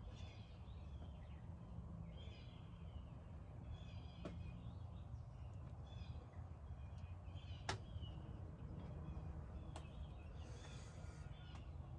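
Birds chirping again and again over a low steady background rumble, with two sharp clicks, one about four seconds in and a louder one near eight seconds.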